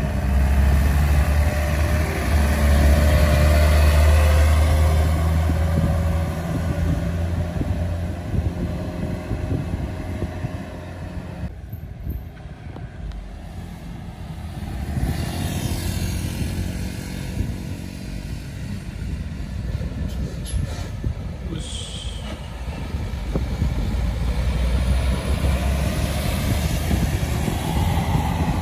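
Heavy diesel vehicles passing close by: a loaded truck's engine rumbles loudly for the first several seconds and then fades. A bus's engine then approaches, growing louder toward the end, with a short hiss about two-thirds through.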